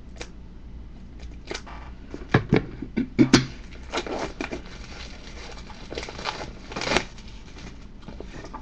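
Wrapping being cut and torn open on a Blu-ray collector's case: irregular clicks, crinkling and rustling, with the loudest snaps and knocks about two to three and a half seconds in and again near seven seconds.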